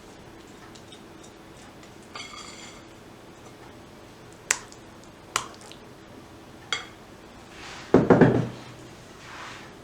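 Kitchen dishes and utensils handled: a short ringing chink about two seconds in, three sharp clicks, then a louder clatter and knock about eight seconds in, like a dish being set down.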